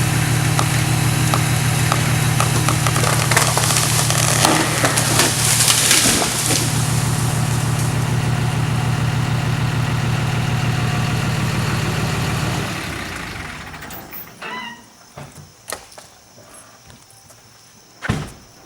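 An engine runs steadily, with a loud rushing crackle about five seconds in. The engine winds down and stops about thirteen seconds in, leaving scattered clicks and one sharp loud knock near the end.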